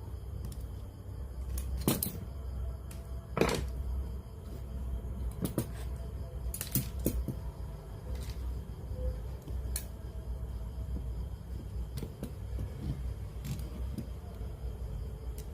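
Irregular clicks and knocks of small tools and parts being handled during repair work, over a steady low hum. The two loudest knocks come about 2 and 3.5 seconds in.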